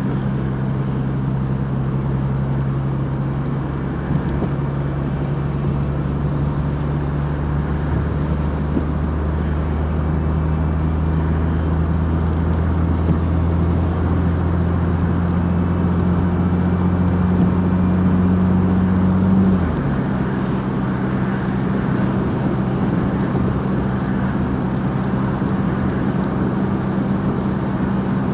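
Vehicle engine drone heard from inside the cabin over steady road and tyre noise on a wet highway. The drone's pitch creeps slowly up, then drops suddenly about two-thirds of the way through and holds steady.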